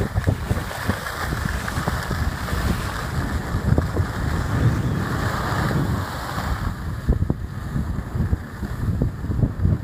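Wind buffeting the microphone at skiing speed, a fluttering low rumble, over the steady hiss of skis sliding on groomed snow, with a few short scrapes and clicks.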